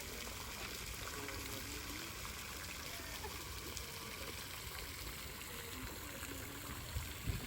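Garden water fountain splashing steadily, with a couple of low thumps near the end.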